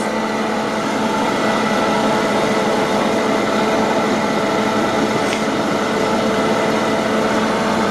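Freshpop hot-air popcorn vending machine running: its blower gives a steady, loud hum with several fixed tones. One faint click about five seconds in.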